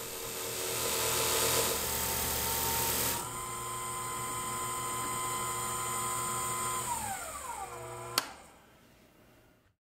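WEN lathe spinning a sanding drum with 3M Cubitron 2 abrasive, grinding a miter into the thick 4130 steel yoke plate: a steady hiss over the lathe motor's hum for about three seconds. Then the grinding stops and the motor runs on alone, falls in pitch as it winds down near the end, with a sharp click.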